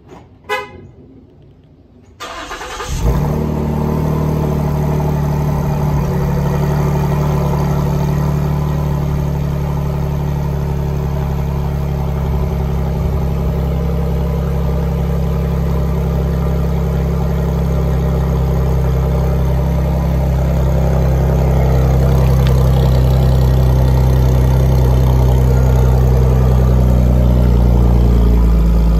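2016 Ford Taurus SHO's twin-turbo 3.5-litre EcoBoost V6, breathing through a Corsa exhaust and catted downpipes, cold-starting. After a short sharp sound, the engine cranks about two seconds in, catches with a flare of revs, and settles into a steady deep idle that grows louder near the end as the tailpipes come close.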